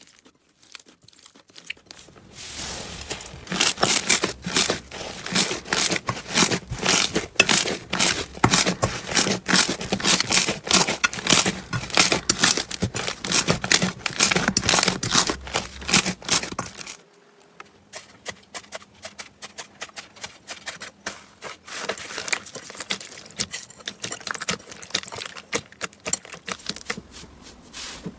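Slime being squeezed and stretched by hand, giving a dense run of crackling clicks and pops. It drops abruptly about seventeen seconds in, and a quieter, sparser crackling goes on after that.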